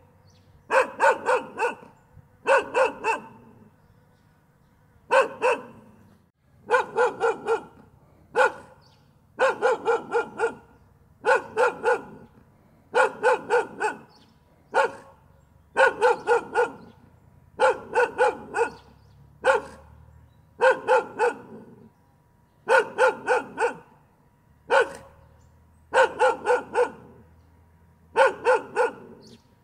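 A dog barking over and over in quick runs of two to four barks, with a short pause between runs.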